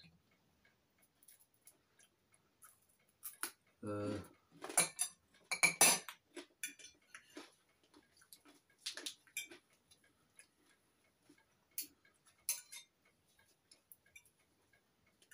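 Knife and fork clinking and scraping on china plates while food is cut and eaten, in scattered short clicks, with a short voice sound about four seconds in.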